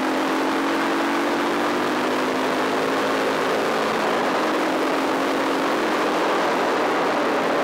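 Dirt bike engine running hard at speed on a gravel track, its note easing slightly, then climbing again near the end, under a steady rushing noise.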